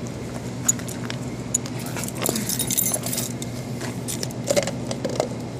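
Metal tools clinking and rattling against the moped's oil drain plug as it is being worked loose: scattered sharp clicks, a denser rattle of clinks about two seconds in, and a few more knocks near the end, over a steady low hum.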